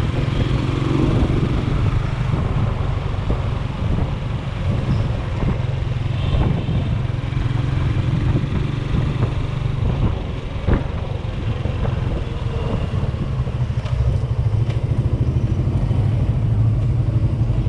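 AKT NKD 125 motorcycle's single-cylinder four-stroke engine running steadily while riding, under tyre and road noise on wet pavement. The engine gets a little louder near the end.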